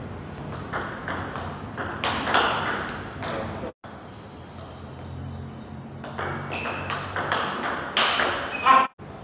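Table tennis rally: the ball clicking off the rubber bats and the table in quick succession, in a large hard-floored hall. Two bursts of rallying, each cut off abruptly.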